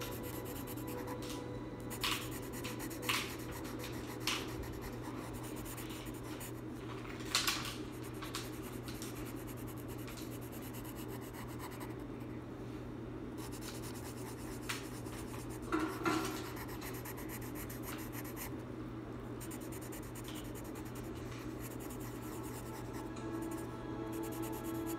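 Felt-tip marker rubbing and scratching on sketchbook paper in short coloring strokes, with a handful of sharp clicks, over a steady low hum.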